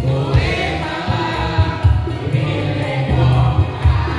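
Karaoke: voices singing together into a microphone over a loud backing track with a pulsing bass beat, played through PA speakers.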